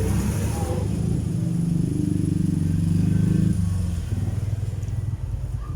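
A motor vehicle engine running with a low rumble, swelling to its loudest about three seconds in and then fading, like a vehicle passing by.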